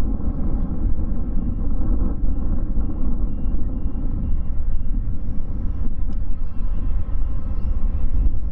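Boeing 787-8 jet engines at taxi power, a steady rumble as the airliner rolls along the ramp. From about a second and a half in, a ground vehicle's reversing beeper sounds about twice a second for a few seconds.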